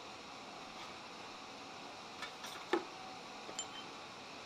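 A few light metal clinks and taps as a hot steel bar is moved across an anvil, the loudest about three seconds in with a short ring, over a steady faint hiss.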